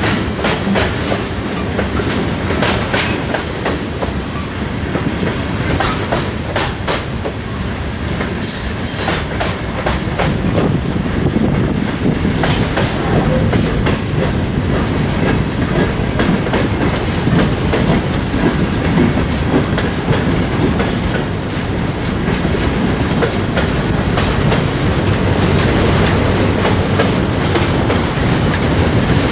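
Freight cars of a CSX train rolling past: a steady rumble of steel wheels on rail with repeated clacking over the rail joints, and a brief high squeal about nine seconds in.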